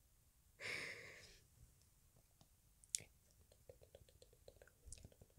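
ASMR mouth sounds: a soft breathy exhale about a second in, a sharp mouth click near the middle, and scattered faint clicks after it.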